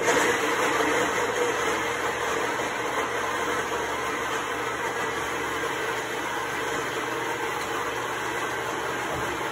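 Electric mixer grinder running steadily, grinding sautéed onions, tomatoes and spices into a paste. It starts abruptly at the beginning and keeps going.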